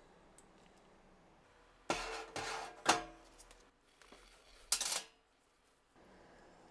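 Small steel parts of a Walther P38 pistol clinking and clattering as they are handled and set down: three short bouts of metallic knocks with brief ringing, the sharpest just before three seconds in.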